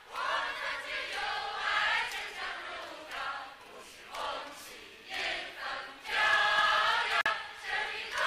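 A large crowd of men and women singing a song together in unison, in phrases, with a brief quieter stretch partway through.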